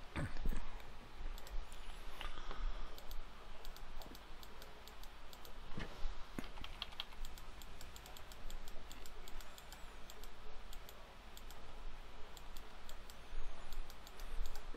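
Light, irregular clicks and taps of a computer keyboard and mouse, with a steady low hum underneath.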